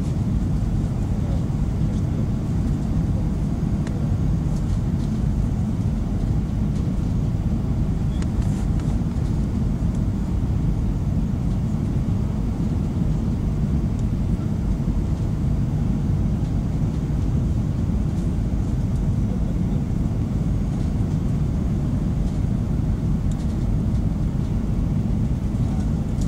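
Steady low rumble inside an airliner's passenger cabin during its descent to land: engine and airflow noise, unchanging throughout.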